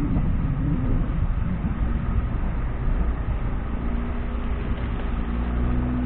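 Vehicle engine running under load while driving along an off-road track: a continuous low rumble, rough at first, with the engine note holding steadier in the second half.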